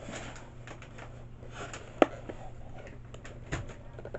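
Cardboard toy packaging being handled and pulled open: light rustling and scraping with scattered clicks, and one sharp snap about two seconds in.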